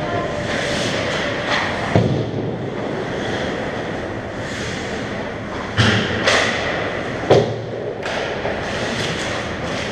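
Ice hockey rink noise heard from behind the net: a steady wash of skates scraping the ice, broken by sharp knocks of sticks and puck, one about two seconds in and three more close together around six to seven seconds.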